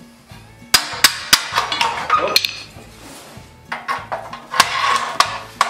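Metal clinks and knocks as a steel axle is fitted through a vintage tricycle's rear frame, in two runs of sharp clicks: one starting about a second in, the other after a short pause.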